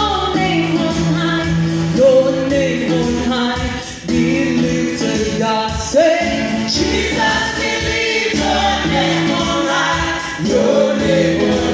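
Live gospel worship singing: a woman leads through a microphone while other singers join in as a group.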